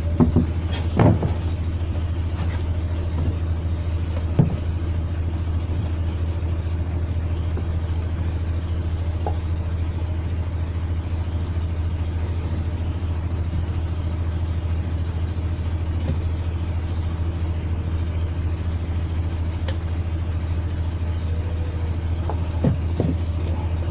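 A steady low mechanical hum, like a motor or generator running, with a few light metallic knocks and clicks from engine parts being handled: several in the first few seconds and a couple near the end.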